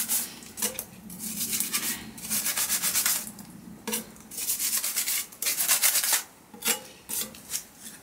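Metal scraper scraping through damp soil mix and across a soil blocker, in a series of short rasping strokes, with a few quicker scrapes near the end.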